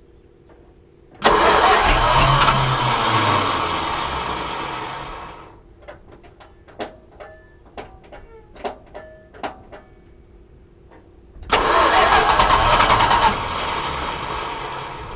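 1973 Plymouth Cuda's 340 small-block V8 started twice. Each time it catches suddenly and runs a few seconds, then fades out as it dies: the engine will not stay running. Light clicks sound between the two attempts.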